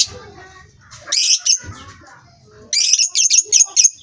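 Lovebirds calling: shrill, rapid chirps in two bursts, one about a second in and a longer run of quick calls near the end.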